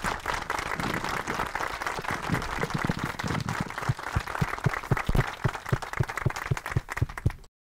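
Audience applauding after a speech. The dense clapping thins in the second half to a few louder claps close by, about two or three a second, then cuts off abruptly just before the end.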